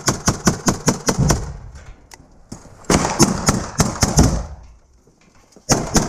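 Rapid gunfire at close range, about five to six shots a second, in three bursts: one ending about a second and a half in, one from about three to four and a half seconds, and one starting near the end.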